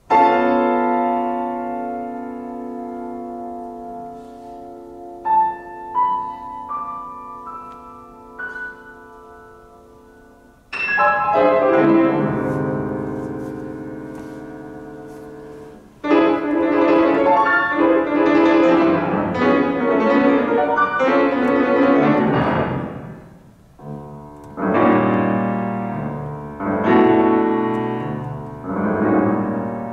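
Grand piano played solo: a loud chord that rings and slowly fades, a few scattered high notes, then another loud chord about eleven seconds in. From about sixteen seconds in come fast, loud runs and chords, broken by short pauses.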